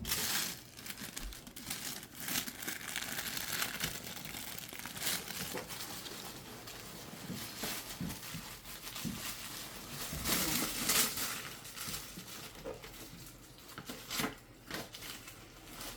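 Packaging being crinkled and rustled by hand as a handbag is unwrapped, in uneven bursts with a few louder crackles.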